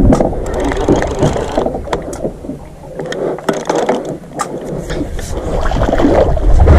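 Water lapping and sloshing against a small boat's hull, with wind buffeting the microphone and scattered light knocks and clicks, while a hooked fish is reeled up; the fish splashes at the surface near the end.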